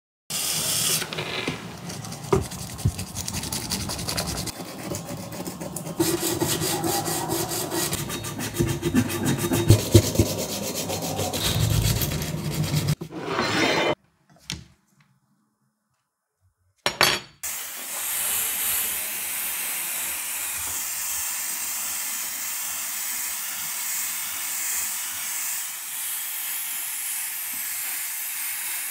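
Plastic model car body parts being sanded: a dry rubbing and scraping with a few sharp knocks. After a brief silence about halfway through, spray paint is sprayed onto the plastic model body in a steady, even hiss.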